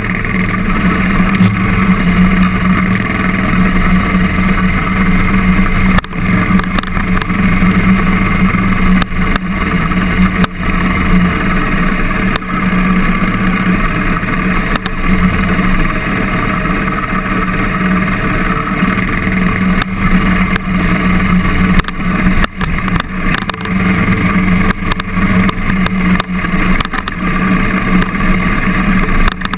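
KTM dirt bike's engine running steadily under way on a rough dirt track, heard close up from the rider's camera. The pitch holds fairly even, with occasional knocks and a few brief dips in the engine note.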